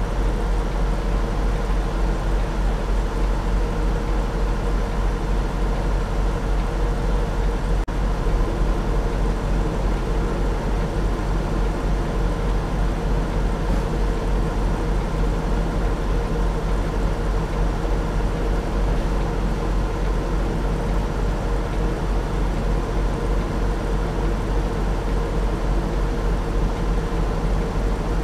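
Semi-truck's diesel engine idling steadily, heard from inside the cab, with a strong low rumble and a constant hum.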